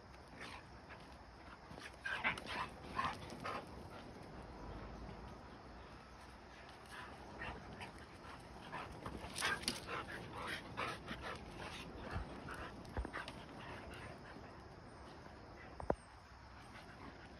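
Huskies vocalising as they play-fight, in two clusters of short calls, one a couple of seconds in and another around the middle. A single sharp click near the end.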